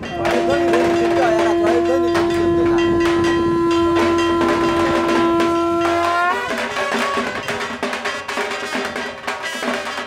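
A conch shell (shankha) blown in one long steady note for about six seconds; the pitch rises slightly just as it cuts off. Throughout, a band beats dhak drums.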